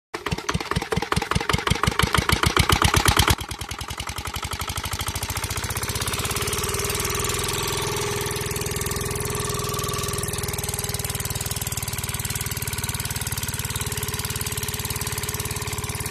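Engine starting: loud chugging strokes that quicken, then a sudden drop about three seconds in to a steady, fast idle that runs on.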